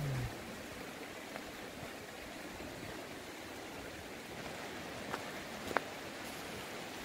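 Steady rush of a mountain stream running over stones, with a couple of sharp clicks of stones underfoot about five seconds in.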